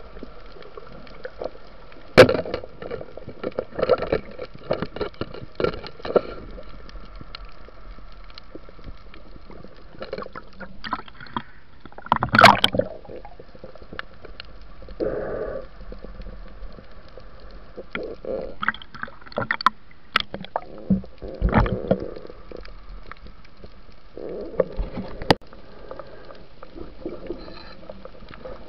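Underwater sound through a camera housing: irregular bubbling and gurgling water movement with scattered sharp knocks and clicks, the loudest about twelve seconds in, over a faint steady hum.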